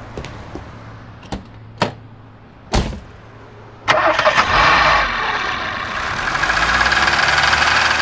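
Car engine idling with a low hum and a few sharp clicks, then revving up loudly and pulling away about four seconds in.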